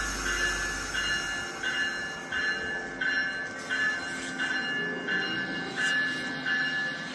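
Locomotive bell ringing steadily, about one and a half strikes a second, over a soft low rumble, heard as a train sound effect.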